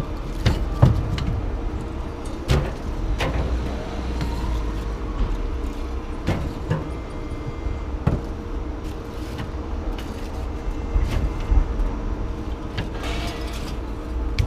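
A running engine's steady low rumble, with scattered metal clanks and knocks as scrap metal is handled and unloaded.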